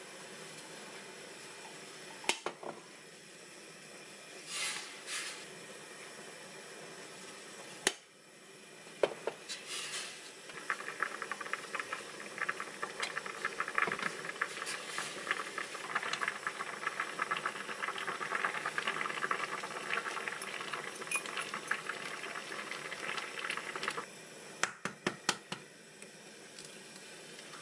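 Tofu broth boiling in an earthenware pot on a gas stove: a steady hiss that swells into dense, crackling bubbling for most of the middle, then drops back. Spoon and dish clinks sound a few times at the start, and sharp taps come near the end.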